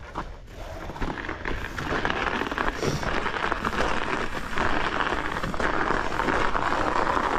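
Mountain bike tyres crunching and rolling through snow: a gritty, crackly noise that grows louder over the first couple of seconds and then holds steady.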